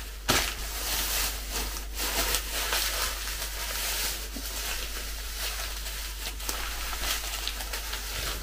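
A plastic bag of wrapped sweets and a foil candy wrapper crinkling and rustling as they are handled, with many small irregular crackles throughout.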